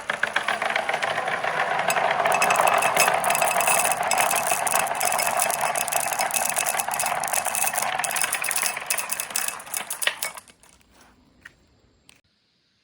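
Glass marbles rolling and clattering down a marble-run track in a continuous dense rattle of many small clicks. About ten seconds in it thins to a few last separate clicks, then stops.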